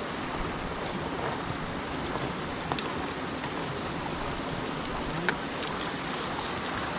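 Carrots, garlic, onion and ginger sautéing in hot oil: a steady sizzle with scattered pops, one sharper pop about five seconds in.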